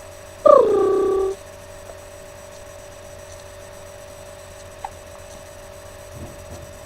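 A young girl's voice: one drawn-out whining cry, under a second long, dropping in pitch as it starts, about half a second in. Under it runs a faint steady two-tone hum.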